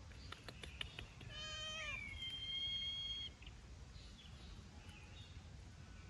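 A single drawn-out, meow-like animal cry of about two seconds. It jumps to a high, steady note before breaking off. A few light clicks come before it.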